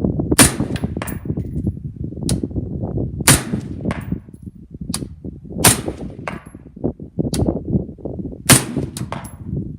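Sig MCX rifle in 5.56 fired at a slow, uneven pace, about six shots, with fainter metallic clangs of steel targets being hit a moment after several of them. A steady low rumble sits underneath.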